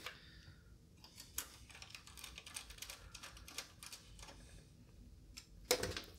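Small screwdriver turning the screw that fastens a PCI video card's metal bracket to a computer case: a run of faint, light clicks and scrapes, then a short, louder clatter near the end.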